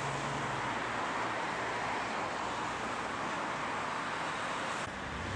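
Steady road traffic noise, an even hiss of passing cars, that changes abruptly near the end.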